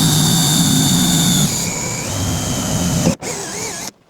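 Powered air blower running at full speed with a loud, steady whine, blowing dust out of a freshly made hole in an electrical box. Its pitch drops about a second and a half in, it cuts out for a moment around three seconds in, then runs briefly again and stops near the end.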